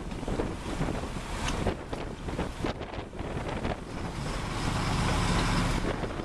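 Boat engine running under wind buffeting the microphone, with water rushing and splashing along the hull. The wind and rumble swell louder about two thirds of the way through.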